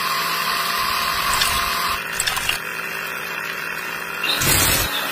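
Small motor whirring steadily as it drives a miniature belt-driven model water pump, with a louder burst of noise a little over four seconds in.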